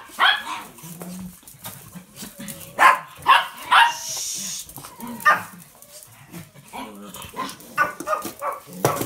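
Small dogs barking in short, sharp bursts, hungry and impatient for their food.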